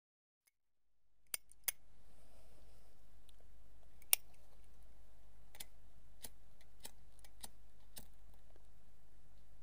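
A cigarette lighter clicking as a cigarette is lit: two sharp clicks about a second and a half in, the loudest near four seconds, then fainter clicks about every half second. Under them a low steady hum fades in after a second of silence.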